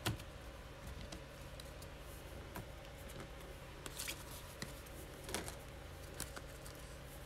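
Faint clicks and light rustling of trading cards in plastic holders being handled and set down on a table, with a few small sharp clicks, over a low steady room hum.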